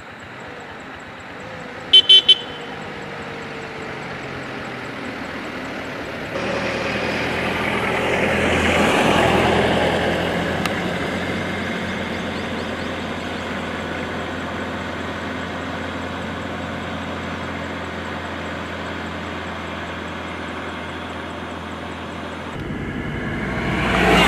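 Road traffic: three short, quick toots of a vehicle horn about two seconds in, then a vehicle driving close past, loudest around nine seconds in. Engine and tyre noise carries on steadily and swells again as another vehicle passes near the end.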